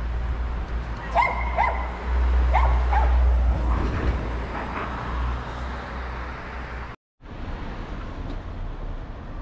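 A dog barks in two pairs of short barks over a heavy low rumble of street noise. The sound drops out briefly about seven seconds in.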